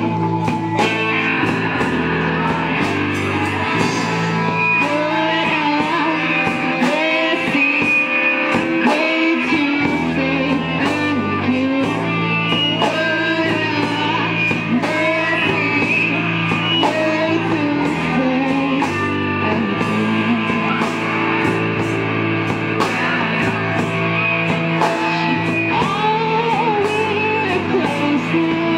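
Rock band playing live: electric guitars over a steady bass line, with a woman singing the melody.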